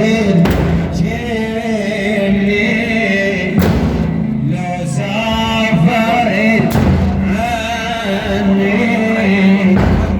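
A man's voice singing a long, ornamented, wavering religious chant, with a deep thud about every three seconds.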